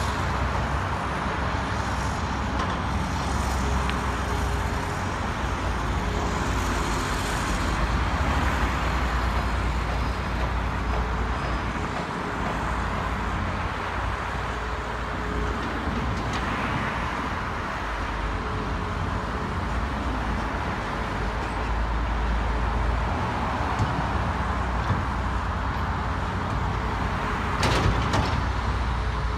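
Caterpillar hydraulic excavator's diesel engine running as it digs and loads soil: a steady low rumble that swells and eases, with a faint tone coming and going. A few sharp knocks near the end.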